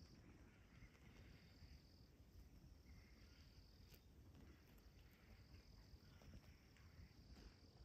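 Near silence with faint insects trilling, a high thin trill coming and going in stretches of a second or two.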